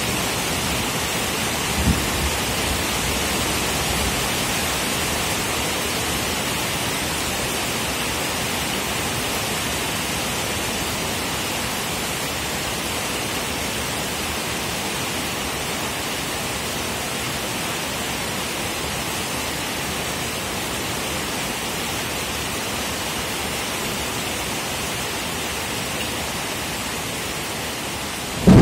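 Heavy tropical rain falling steadily, a constant even hiss, with a single brief knock about two seconds in.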